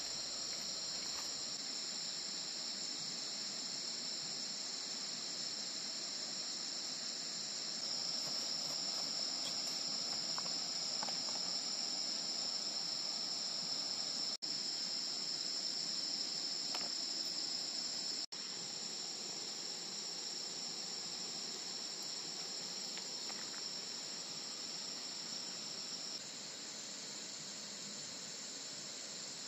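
A steady, high-pitched chorus of night insects, crickets by the sound of it, trilling without pause. It swells about a quarter of the way in and eases near the end, with two momentary breaks in the middle.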